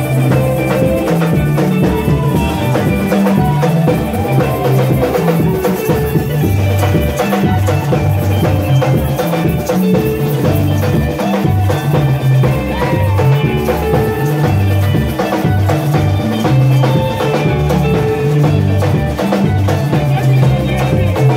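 Live church band music: electric guitars over a strong, rhythmic bass line and drums, played loud with a steady dance beat.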